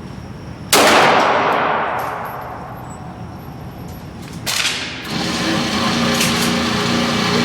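A gunshot about a second in, its echo dying away over a couple of seconds, then a second, weaker bang at about four and a half seconds.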